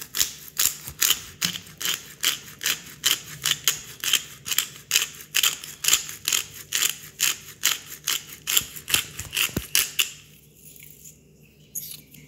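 Hand pepper mill grinding black peppercorns: a rapid, even run of crisp clicks, about four a second, that stops about ten seconds in.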